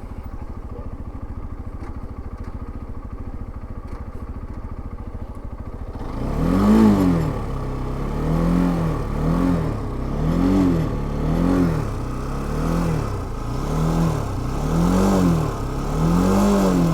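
Dafra NH190 motorcycle engine idling, then revved in about eight short blips from about six seconds in, each rising and falling in pitch. It is being revved to bring out a strange noise that the owner thinks comes from something loose at the front, perhaps loosened bolts.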